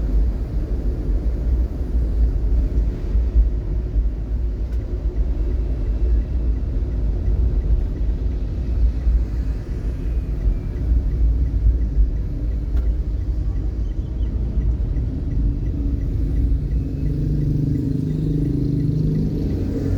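Steady low road rumble of a vehicle driving in traffic, with an engine hum joining near the end.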